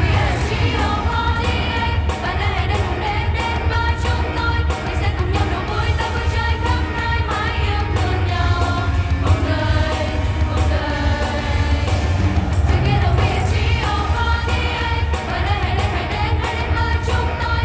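Live pop song from an idol group: several young women singing together into microphones over a backing track with a steady beat. A falling sweep opens the passage.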